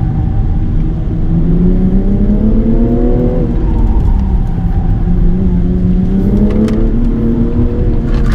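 Car engine under load, heard from inside the cabin: the revs climb for a couple of seconds, drop sharply about three and a half seconds in, then hold and rise again. Steady road and tyre rumble runs underneath.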